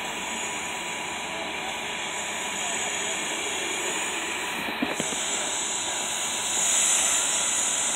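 Steady aircraft turbine noise: a hissing rush with a thin steady whine, louder near the end, with a couple of faint knocks about five seconds in.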